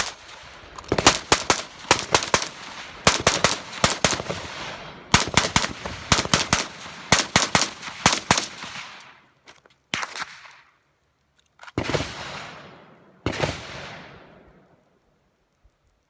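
Gunshots fired in quick strings of several shots each for about nine seconds, then three single shots about a second and a half apart, each trailing off in a long echo.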